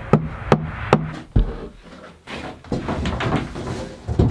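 A run of sharp knocks on plywood, about two a second through the first second and a half, each with a short low ring from the board. Then comes rustling and scraping as the boards are handled, and one more knock near the end.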